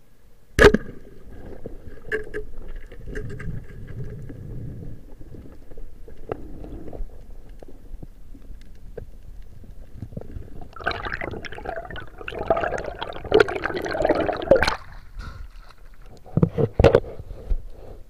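Heard underwater: a speargun fires with one sharp crack about a second in. It is followed by muffled rustling and scattered knocks, a dense stretch of scraping and clattering in the middle, and a few loud knocks near the end as the speared fish is fought and pulled off the reef.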